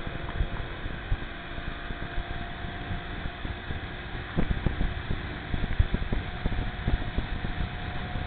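Motorboat running at speed while towing tubes: a steady engine drone with a faint steady whine, rushing water and wind on the microphone, broken by irregular low thumps and bumps that come heaviest from about four seconds in to near the end.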